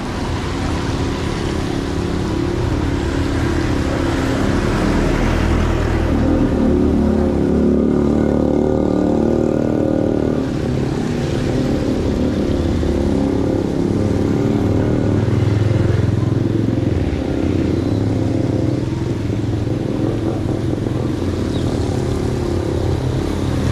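Street traffic: motorcycles and cars running and passing along a wet road, a steady, unbroken engine noise.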